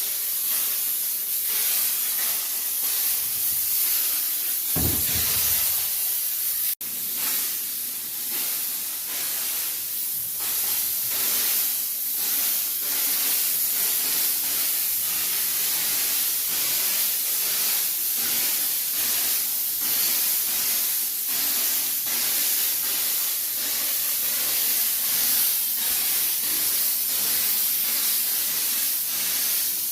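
Disinfectant sprayer or fogger hissing steadily as it mists sterilising solution for odour removal. There is a short low thump about five seconds in and a brief break near seven seconds.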